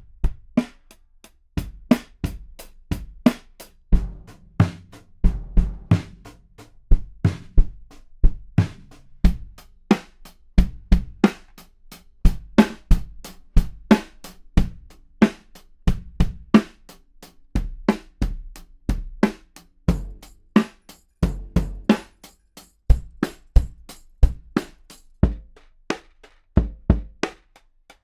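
Drums played in rhythmic patterns and single strokes, picked up close by a DPA 4055 kick drum microphone; many of the hits carry a strong deep low end.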